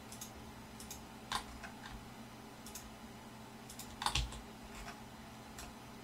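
Irregular clicks of a computer keyboard and mouse, about nine in all, the loudest a quick double click about four seconds in.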